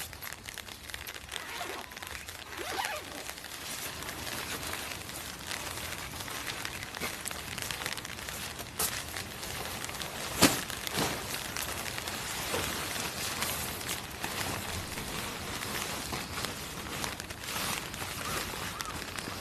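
Canvas tent fabric and gear bags rustling and crumpling as they are handled, carried and unfolded on gravel, with crunching steps on the gravel and one sharp knock about ten seconds in, over a steady hiss of light rain.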